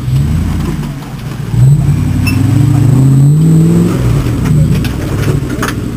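Toyota Land Cruiser engine revving up and falling back several times as the 4x4 crawls over dirt mounds on an off-road course. The strongest rise comes just under two seconds in.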